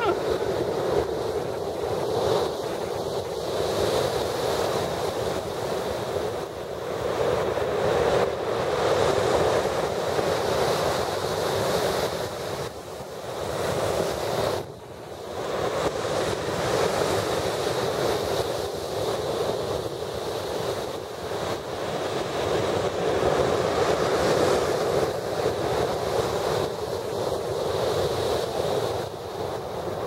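Storm surf breaking on a pebble beach: waves crash and wash up the stones, swelling and easing every few seconds.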